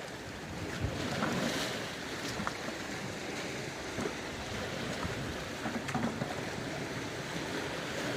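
Rough sea surf washing steadily against a rocky shore, with wind buffeting the microphone and a few faint knocks.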